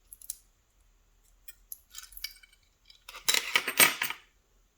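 Small metal lock parts clicking and clinking against each other and the tools as a pin-tumbler cylinder is taken apart. A few light clicks, then a louder burst of rattling, ringing clinks about three seconds in.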